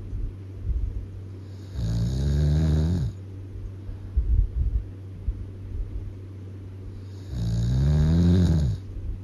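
Heavy snoring: two long snores about five seconds apart, each rising then falling in pitch, with short crackly puffs of breath between them.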